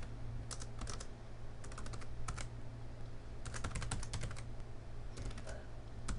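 Computer keyboard typing in short bursts of keystrokes with brief pauses between them, over a low steady hum.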